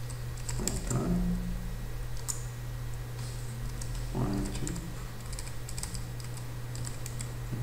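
Typing on a computer keyboard: short runs of quick key clicks with pauses between words, over a steady low hum.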